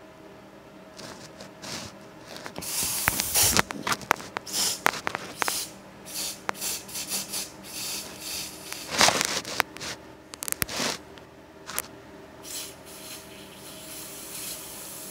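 Hissing bursts from an aerosol can of Raid insect spray: one about three seconds in, a loud one around nine seconds, and another starting near the end, with scattered clicks and rubbing noises in between.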